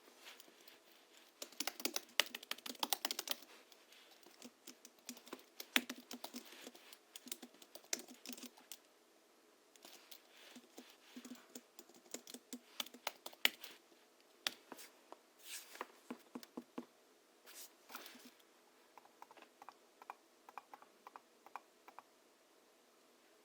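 Typing on a Hansung GHL-5X keyboard fitted with 50 g rubber domes and lubricated springs: fast runs of keystrokes in several bursts with short pauses, thinning to a few scattered light taps near the end.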